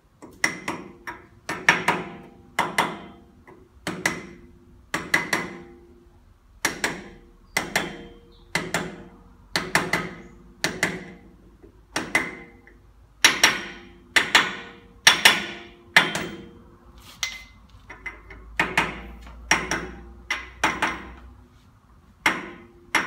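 Soft-face hammer striking a socket that drives a bearing into a Toyota Landcruiser's front axle housing: a long run of tapping blows, about one to two a second, often in pairs, each with a brief metallic ring. A high-pitched ring from the blows marks the part touching the axle housing inside, the sign that the bearing is pushed all the way in.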